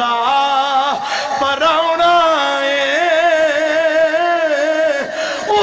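A man singing a Punjabi naat in long held notes with a wavering vibrato, pausing for breath about a second in and again near the end.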